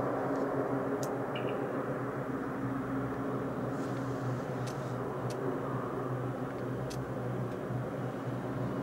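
Distant search-and-rescue helicopter hovering, a steady low drone of rotor and engines.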